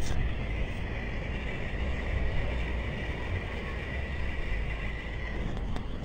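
Steady rushing of wastewater pouring out of a broken sewage pipe onto the sand, with a low wind rumble on the microphone.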